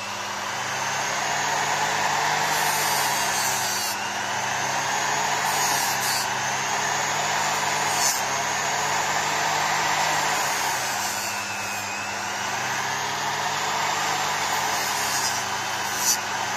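Ferrex bench grinder motor coming up to speed, then running steadily as a rubber motorcycle fork oil seal is held against the spinning wheel to grind down its rubber lip. The whine wavers slightly with the contact, with a couple of light clicks.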